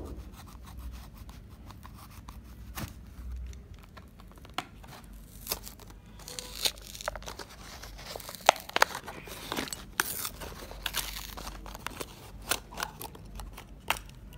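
Hot Wheels blister card being torn open by hand: the cardboard backing ripping and the stiff plastic blister crackling in scattered snaps and crinkles. They grow busier from about halfway through, with the sharpest snaps about two-thirds of the way in.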